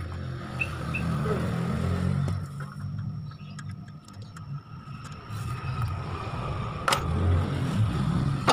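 A motor vehicle engine running with a low, uneven rumble, and one sharp click about seven seconds in.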